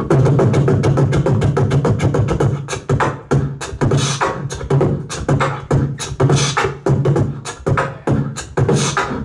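Beatboxing amplified through a handheld microphone: fast, sharp percussive clicks and snare-like strokes over a low, sustained bass tone that drops out briefly about three seconds in and returns.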